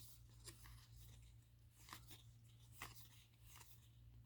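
Faint scattered clicks and light rustling of trading cards being handled and flipped through, with a few small sharp ticks.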